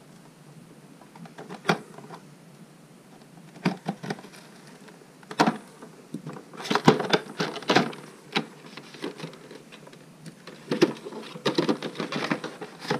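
Scissors cutting the tape on a small cardboard box, then the box flaps being pulled open and handled. The sound is a series of short clicks, snips and papery scrapes, sparse at first and busier in the second half.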